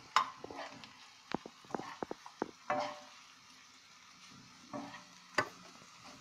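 A metal spoon scraping and clicking against a frying pan as grated carrot and chopped onion are stirred, with a light sizzle of the vegetables frying in oil underneath. The clicks come thickest in the first few seconds, with one sharp knock near the end.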